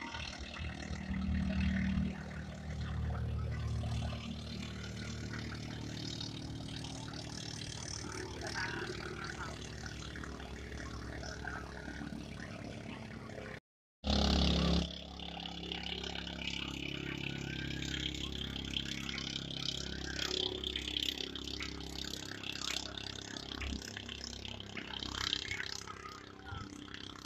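Racing boat engines running steadily, loudest in the first few seconds. The sound cuts out completely for a moment about halfway through.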